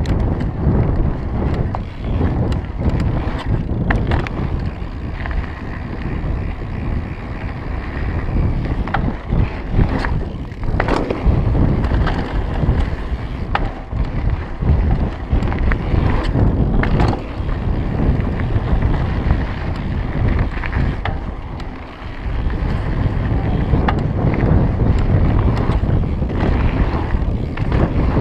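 Mountain bike riding fast over a gravel and dirt trail: tyres crunching and rumbling, frequent clicks and rattles from the bike over the bumps, and wind buffeting the camera microphone. There is a brief lull about three-quarters of the way through.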